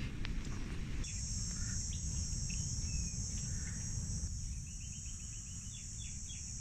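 Steady, high-pitched insect chorus that comes in about a second in, with a series of short chirps near the end and a low rumble underneath.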